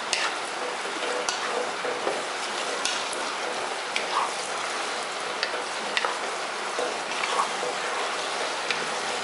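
Squid and basil stir-fry sizzling in a pot over high heat, with a wooden spatula scraping and clicking against the pot as it is stirred every so often.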